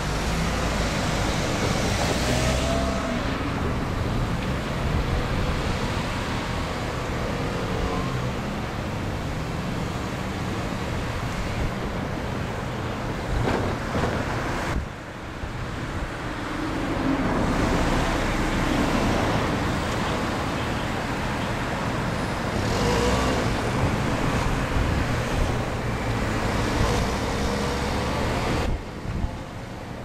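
Steady rumble of distant vehicle traffic, dipping briefly about halfway through.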